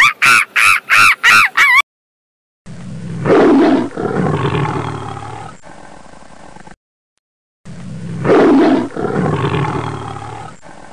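A monkey's rapid high-pitched calls for the first two seconds, then a big cat's roar heard twice, identically: a loud roar that trails off into a long growl each time.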